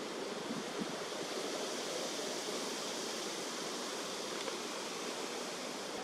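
Steady outdoor background hiss, even and unbroken, with no bird calls or other distinct sounds standing out.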